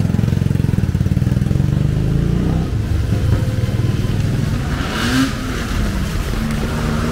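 Motorcycle engines running close by in street traffic, a fast pulsing note at first. About five seconds in comes a rising engine note with a short hiss, and near the end another engine note rises as it passes.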